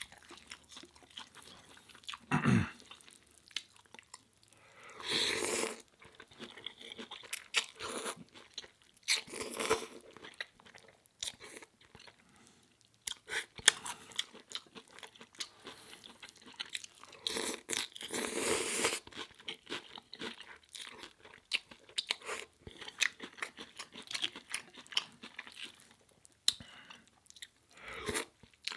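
Close-up eating sounds: seaweed crisps being bitten and crunched, with irregular chewing crackles and several louder, longer bursts of crunching.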